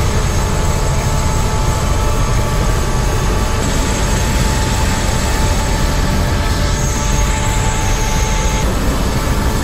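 Helicopter turbine engine and rotor running on the ground, heard from inside the closed cabin: a loud, steady rumble with a thin, high turbine whine over it.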